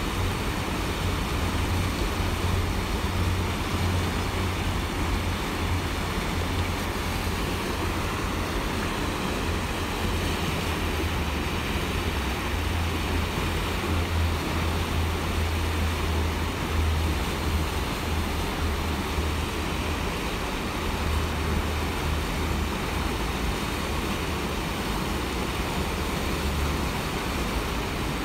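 Steady rushing of shallow river rapids, with a low, uneven rumble underneath.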